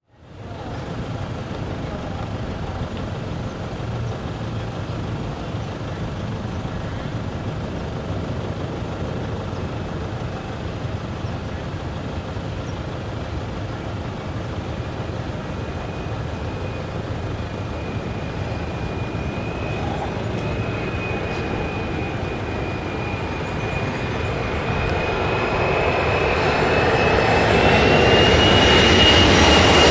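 Jet engines of a Boeing 737-400 (CFM56-3 turbofans) growing louder as the airliner approaches: a steady low rumble, then a high whine that comes in about halfway, rises slightly in pitch and grows loud near the end.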